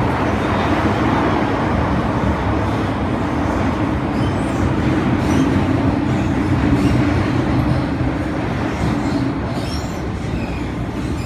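Hong Kong MTR Tsuen Wan Line M-Train (Metro-Cammell EMU) heard from inside the passenger car while running: a steady rumble of wheels on rails with a steady low hum, easing a little near the end.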